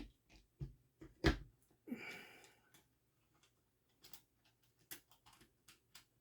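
Faint clicks and knocks of small gun parts being handled and fitted together, with one louder knock about a second in. A short breathy rush follows about two seconds in, then a few light ticks near the end.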